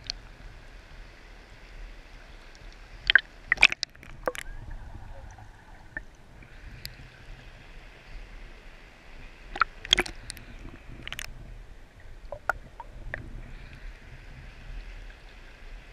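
Shallow river water flowing and sloshing around a camera at the waterline, with sharp knocks and splashes several times: about three to four seconds in, around ten seconds, and again around twelve to thirteen seconds.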